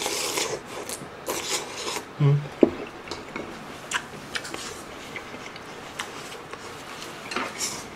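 Close-miked eating sounds: broth slurped off a spoon of army base stew and chewed, with wet mouth clicks and a short low hum a little after two seconds in. Near the end a tissue rubs across the mouth.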